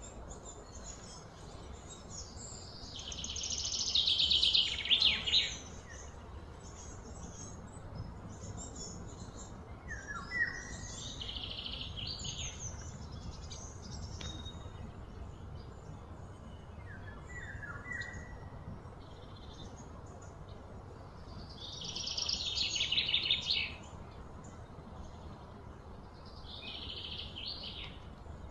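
Repeated bursts of high-pitched chirping and trilling from outdoor wildlife. Each burst lasts a few seconds, loudest about four seconds in and again a little past twenty seconds, with short chirps in between, over a steady low background.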